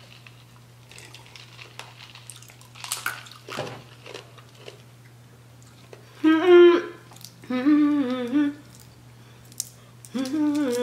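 A woman humming in three short wavering phrases, the first about six seconds in. Before that come soft clicks and crackles of crab and shrimp shells being peeled by hand.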